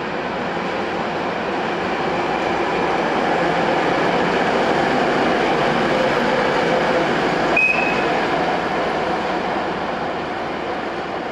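Czech Railways diesel locomotive of the 'goggles' type running past, its engine and wheels rising to a peak as it passes and then easing off. A brief high squeal sounds about two-thirds of the way through.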